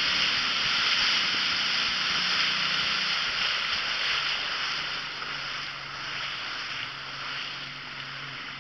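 Small boat on open water: a steady rush of water and wind hiss, with a faint low motor hum underneath that drops in pitch about halfway as the whole sound eases off.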